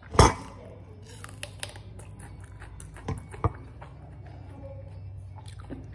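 Close-up eating sounds: a person chewing a mouthful of rice and raw green vegetable, with one sharp crunch near the start and two smaller clicks about three seconds in.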